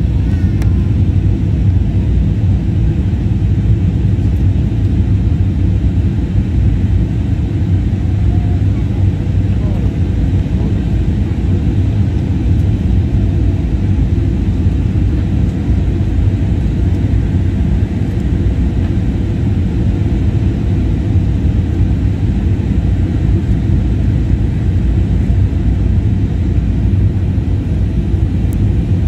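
Steady, low cabin noise of a jet airliner in flight: engines and rushing air, unchanging throughout.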